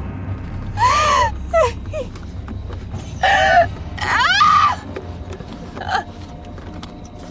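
A woman screaming and crying out in several short, high-pitched screams, the pitch bending up and down, over a low steady rumble.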